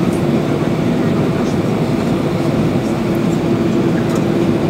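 Steady rumble inside a vehicle, with a constant mid-pitched hum running through it.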